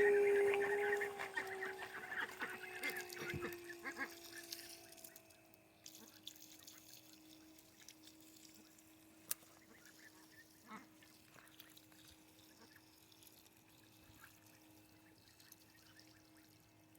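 Domestic ducks calling over a steady, slowly falling tone. Both fade out over the first five seconds or so, leaving near silence with a few faint clicks.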